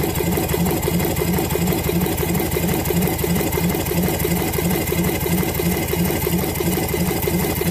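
Stuart Turner 3-horsepower Swan steam engine running steadily on compressed air, with a fast, even mechanical beat.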